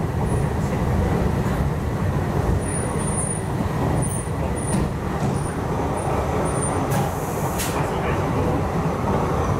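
Cabin noise of an MTR East Rail line R-train, a Hyundai Rotem electric multiple unit, running at speed: a steady rumble of wheels on rail, with a brief hiss about seven seconds in.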